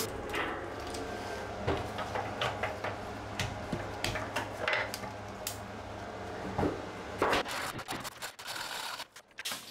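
Scattered metal clinks and knocks from a chain hoist and its chain being handled against a steel hull plate, over a steady low hum. About seven seconds in the hum drops away and a quick run of rattling clicks follows as the hoist chain is pulled.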